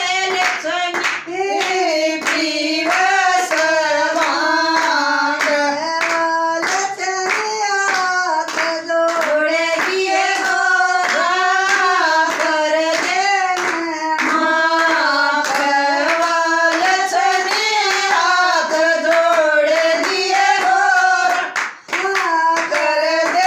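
Female voice singing a Haryanvi bhajan to Shiva (Bhole) in a folk melody, with steady rhythmic hand clapping keeping time.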